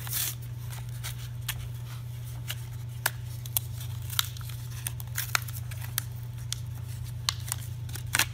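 Retail blister pack being torn open by hand: paper backing card tearing and plastic packaging crackling, in scattered sharp crackles with a louder rip near the end.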